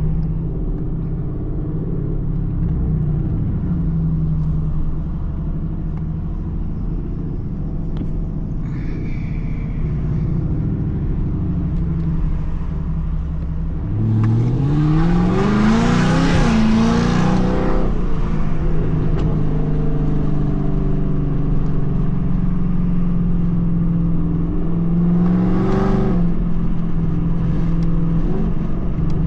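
2024 Ford Mustang GT's 5.0 L V8 running through Kooks headers while driving, a steady engine drone. About halfway through it revs up hard in a rising sweep lasting a few seconds, then drops back; a shorter rev comes near the end.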